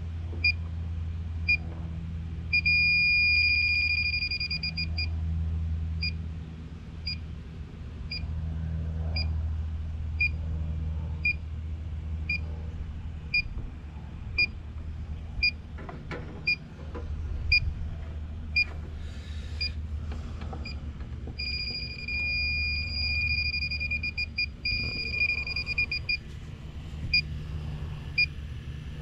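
Electronic refrigerant leak detector ticking with short high beeps about once a second, twice breaking into a continuous, rapid alarm beep (about three seconds in, and again for several seconds near the end) as its probe picks up refrigerant leaking at the condenser's service valves. A low steady hum runs underneath.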